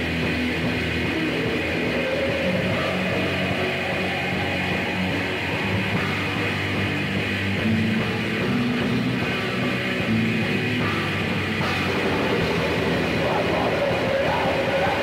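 Raw black metal recording with a dense, muffled, lo-fi old-tape sound.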